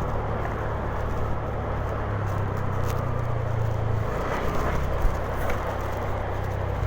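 Honda Genio scooter's small single-cylinder engine running while riding, under a steady rush of wind and road noise. The engine note shifts slightly about two seconds in and again about four seconds in, and there is one sharp tick about five seconds in.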